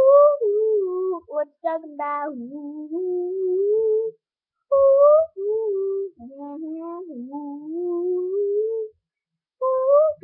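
A child singing alone: long held notes that waver and slide up and down, in phrases broken by short pauses about four and a half seconds in and again near the end.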